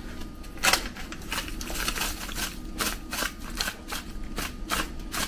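A spoon scooping and tipping powdered biryani masala into a marinade, with irregular light clicks and scrapes.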